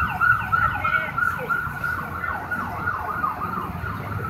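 Emergency vehicle siren in a fast yelp, its pitch sweeping down again and again several times a second over a low rumble, slowly growing fainter.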